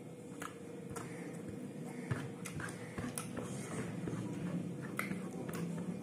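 Eating by hand: fingers squishing and mixing rice with beef curry on a plate, and chewing, heard as scattered small wet clicks and smacks over a steady low hum.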